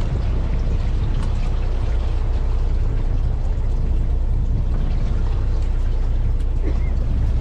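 Fishing boat's engine running steadily, a constant low rumble heard from on board, with water and wind noise over it.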